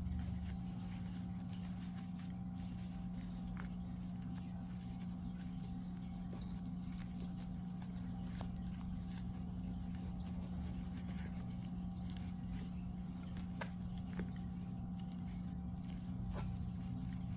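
A steady low hum throughout, with faint scattered rustles and light ticks of crocheted yarn pieces being handled and fitted together.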